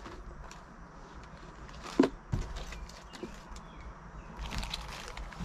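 Small bagged fishing spinners being handled and pulled out of a cardboard box, light rustling with a single sharp knock about two seconds in.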